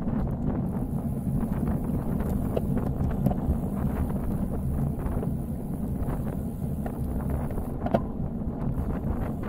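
Wind buffeting the microphone of a bike-mounted 360 camera while riding, a steady low rumble with scattered faint ticks and one sharper click about eight seconds in.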